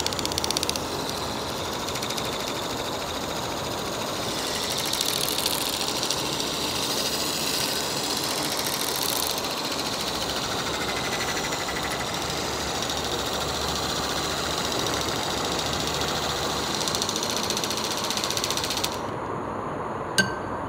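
Small battery-powered handheld whisk running steadily, its wire whisk churning milk and pudding mix in a glass bowl with a buzzing motor whine. The whisk cuts off suddenly near the end, and a single sharp click follows.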